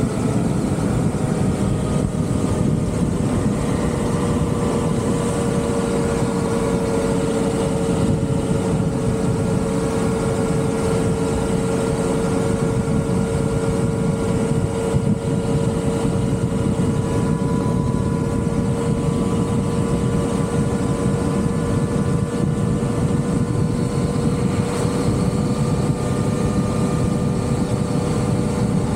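Vehicle engine running under way at a steady cruising speed, its pitch easing slightly at the start and then holding level, over constant low wind rumble.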